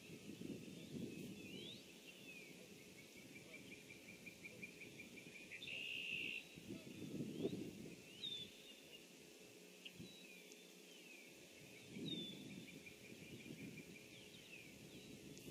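Faint outdoor ambience of small birds calling: scattered short chirps and whistles, with a quick trill a few seconds in. Low rumbling swells of background noise rise three times, loudest around the middle.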